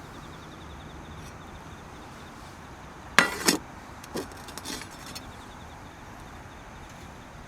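A sudden clatter of hard objects knocking together, two loud strikes about three seconds in, followed by a few lighter clinks.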